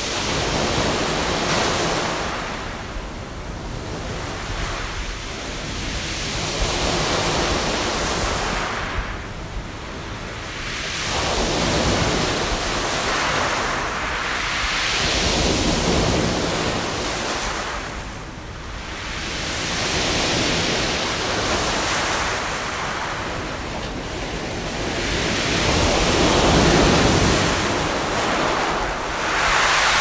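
Sea waves breaking on a beach of round pebbles (mongdol), with the stones rattling in the wash. The surf swells and fades every five or six seconds.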